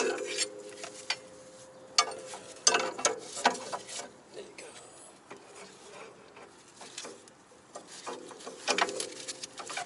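Scattered metallic clicks and clinks as a brake caliper and a caliper hanger hook are handled and hung against the front suspension, in small clusters near the start, around two to three and a half seconds in, and near the end.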